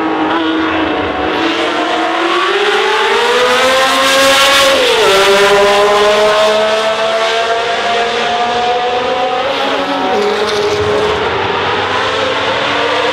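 Historic sports-prototype racing car's engine at full throttle, climbing in pitch through the gears with sharp upshifts about five and ten seconds in and again near the end. Loudest around the middle as it passes.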